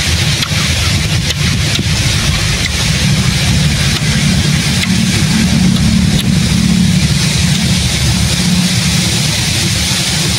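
A steady low rumble with a hiss over it, swelling a little in the middle.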